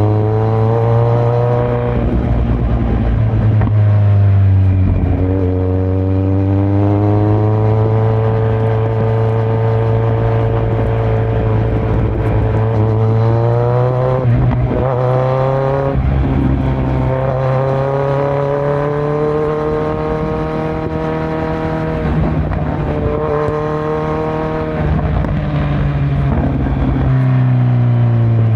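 Kawasaki Z900's inline-four engine through a Yoshimura muffler and Delkevic headers with no dB killer, pulling through the gears. The pitch climbs with the throttle and falls at each upshift, several times.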